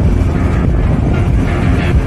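A four-wheel-drive vehicle driving, a steady low rumble of engine and tyres.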